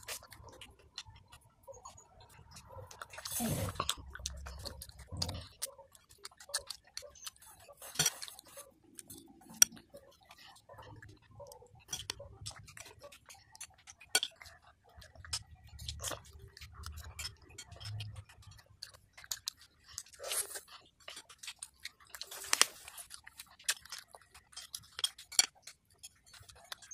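Close-up eating sounds: a metal spoon clicking and scraping against a ceramic plate of chicken rice porridge, with wet chewing and mouth sounds between the many short, scattered clicks. A few dull low bumps come through in places.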